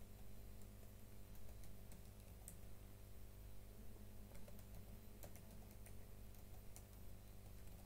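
Faint computer keyboard typing: scattered, irregular key clicks over a steady low hum.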